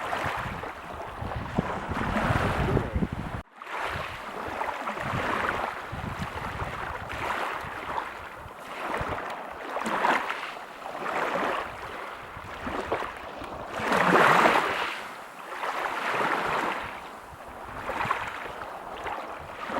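Waves washing in on a beach: a continuous rush of surf that rises and falls every second or two, loudest about two thirds of the way through, with a brief gap about three and a half seconds in.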